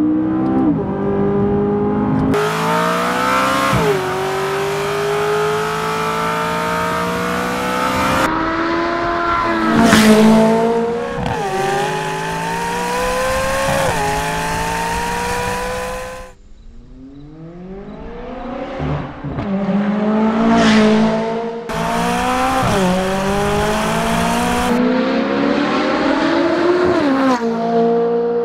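McLaren 570S's 3.8-litre twin-turbo V8 accelerating hard through the gears. Its note climbs in pitch and drops sharply at each upshift, over and over, with a couple of sharp cracks. About halfway through the sound suddenly cuts quieter and the revs fall away before it builds again.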